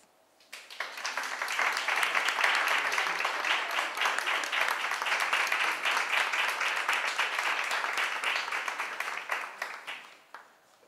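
Audience applauding: dense clapping starts about half a second in, swells, and dies away near the end.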